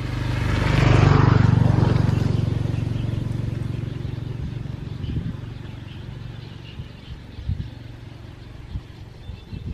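A motor vehicle's engine passing close by, loudest about a second in and fading away over the next few seconds, with a few light knocks afterward.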